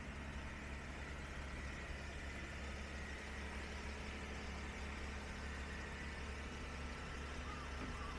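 Steady low hum of a car with its engine running.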